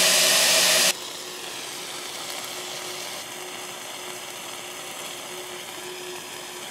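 Minced beef sizzling in a frying pan as its water content cooks off in steam, before it has started to brown. Loud for about the first second, then it cuts abruptly to a quieter, steady sizzle.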